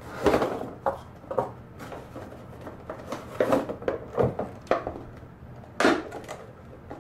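Parts and packaging of a CPU cooler being handled and pulled out of their box: a string of short clacks and rustles, about seven in all.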